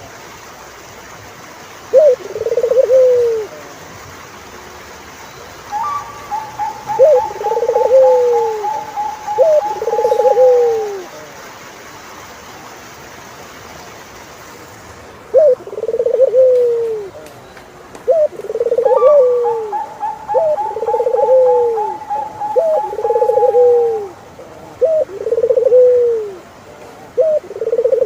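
Turtle doves cooing: repeated coos, each a short note followed by a longer falling one, with a pause of a few seconds midway. Twice a second, higher call joins in, a rapid trill that falls slightly and lasts several seconds.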